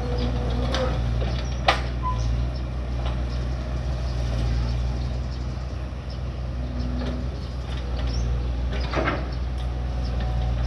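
Excavator's diesel engine running steadily, with a sharp knock about two seconds in and a shorter clatter near the end.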